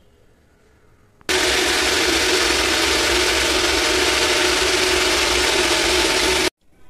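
Preethi Zodiac mixer grinder running with its small jar, grinding soaked urad dal into idli batter: a loud steady whir that starts abruptly about a second in and cuts off sharply about five seconds later.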